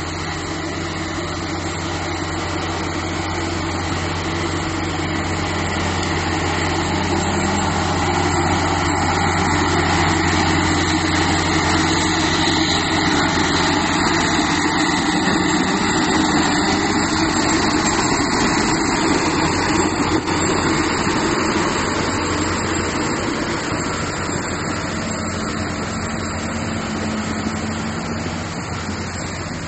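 Bulldozer diesel engine running steadily under load. It grows louder over the first ten seconds or so, holds, then eases off a little toward the end.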